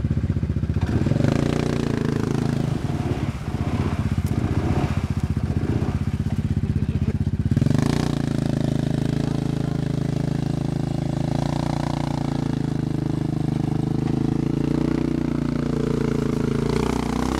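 Single-cylinder ATV engines running hard in deep mud and water. First comes the stuck Arctic Cat Mud Pro 700 working with its wheels spinning. After a change about 8 s in comes a steady engine note, with the Yamaha Grizzly 700 in the swamp water.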